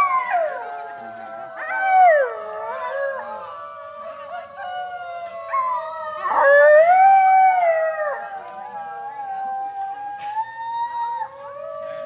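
Coyote howling: several long, wavering howls overlap and glide up and down in pitch, swelling about six seconds in and then falling away.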